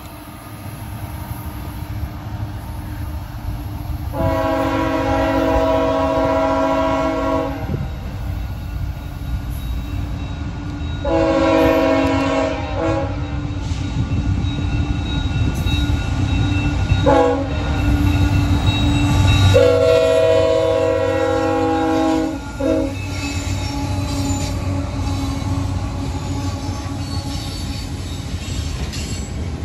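CN freight locomotive's horn sounding the grade-crossing signal, long, long, short, long, as a chord of several notes, starting about four seconds in. Under the horn is the steady low rumble of the diesel locomotives and the train rolling on the rails.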